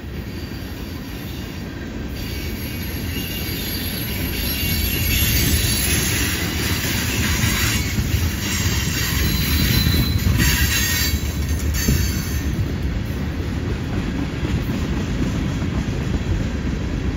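Tank cars of a long freight train rolling past on a curve: a steady low rumble of steel wheels on rail, with high-pitched wheel squeal from the flanges on the curve, strongest in the middle.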